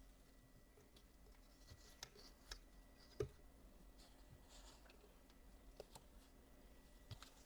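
Near silence with a few faint, scattered clicks and taps, the clearest about three seconds in.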